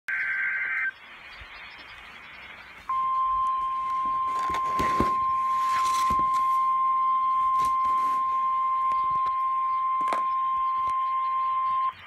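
Emergency alert broadcast audio: the end of a short digital header data burst, a brief pause, then a single steady NOAA Weather Radio warning alarm tone for about nine seconds, cutting off suddenly before the spoken watch message. A few faint clicks sound over the tone.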